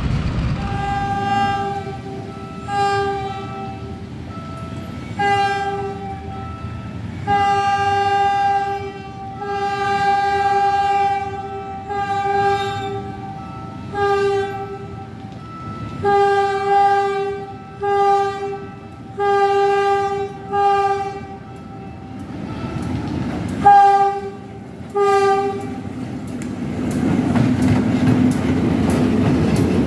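Diesel locomotive PNR DEL 921 sounding its horn over and over, a string of short and long blasts. In the last few seconds the locomotive comes close, and its engine and wheels on the rails rise to a loud rumble.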